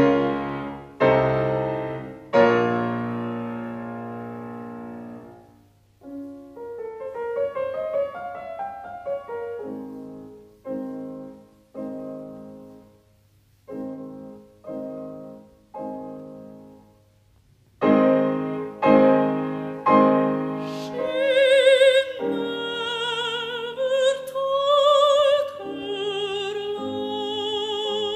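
Solo piano playing slow, separated chords and a short running passage. About three-quarters of the way in, a contralto voice enters singing with vibrato over the piano accompaniment.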